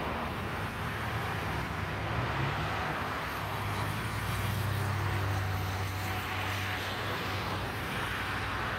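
Boeing 737-800 jet engines on final approach, heard from a distance as a steady rumble, with a low hum swelling in the middle. Wind noise on the microphone mixes in.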